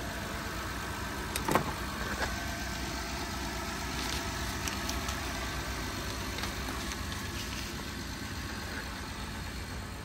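Honda Odyssey's 3.5-litre V6 idling steadily and smoothly, with the P3400 rocker arm oil pressure fault cured by new pressure switches. A single short knock comes about one and a half seconds in.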